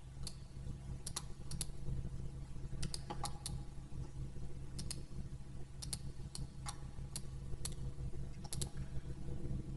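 Scattered clicks of a computer mouse and keyboard, some in quick pairs, over a steady low hum.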